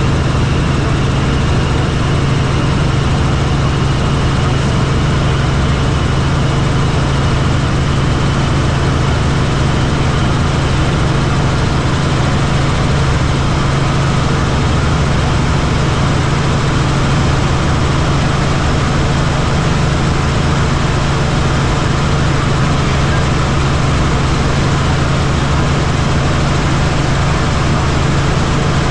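Helicopter in flight: a steady, loud drone of engine and rotors, with a strong low hum under a wide rushing noise that holds unchanged throughout.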